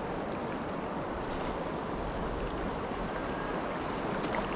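Steady rush of the Kenai River's current flowing past the bank, with a few faint clicks.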